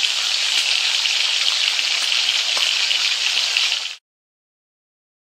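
Food sizzling in hot oil: a steady frying hiss with small crackles that cuts off abruptly about four seconds in.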